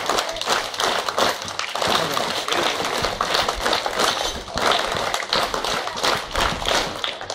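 Scattered, uneven clapping from a crowd, with indistinct background chatter.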